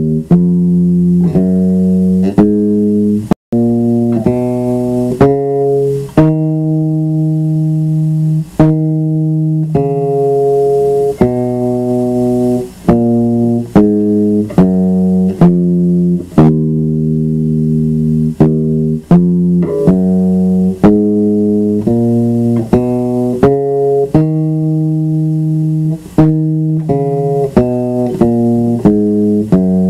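Electric bass guitar playing the E natural minor scale, one note at a time, each note plucked and held for up to a second or two.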